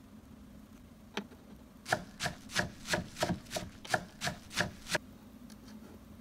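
A miniature kitchen knife chopping vegetables on a small cutting board: one tap, then about ten quick knife strikes against the board at roughly three a second.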